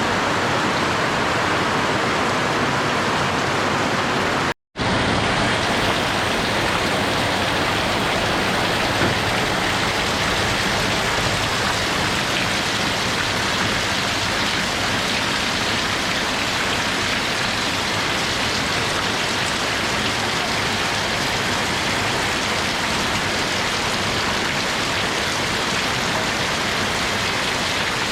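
Steady heavy rain falling, an even hiss of drops. About four and a half seconds in the sound cuts out completely for a fraction of a second, then resumes, a little brighter.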